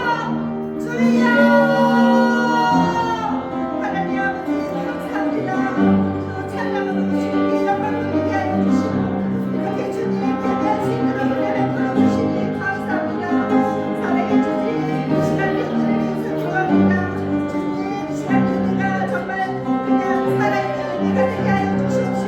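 Instrumental church music played under a congregation praying aloud all at once, a steady jumble of many overlapping voices, with one loud voice calling out near the start.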